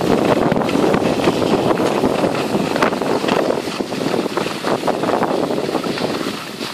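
Steady rush of wind over the microphone mixed with the scrape of skis gliding over packed snow, recorded by a skier on the move downhill.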